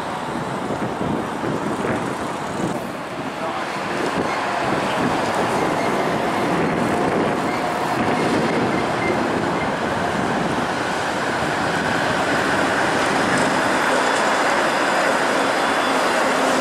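Flexity Outlook low-floor streetcar rolling along its track and past at close range, mixed with street traffic. The sound grows louder about four seconds in and stays up as the car draws near.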